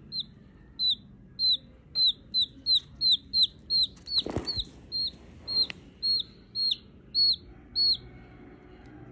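A chicken chick peeping: a steady run of short, high, falling peeps, about two a second, stopping near the end. A brief bump sounds about four seconds in.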